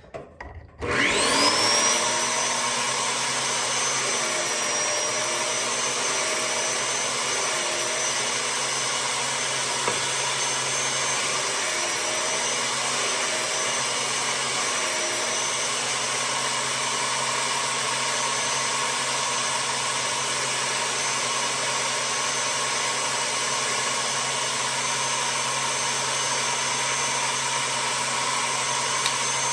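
Upturned belt sander switched on. Its motor spins up with a rising whine about a second in, then runs steadily at full speed.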